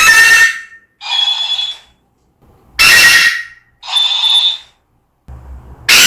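African grey parrot giving loud, shrill calls, five of them, each under a second, alternating between a lower and a higher note like a two-tone alarm. A low rumble comes in near the end.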